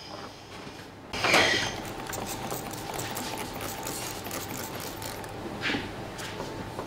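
A machine clattering: a loud sudden start about a second in, then a steady rattle of many fast clicks over a constant hum.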